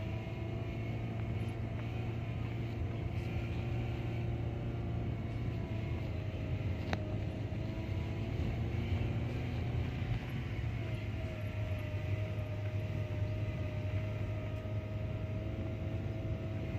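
Car engine and road rumble heard inside the cabin while driving, a steady low hum with a faint whine, and a single sharp click about seven seconds in.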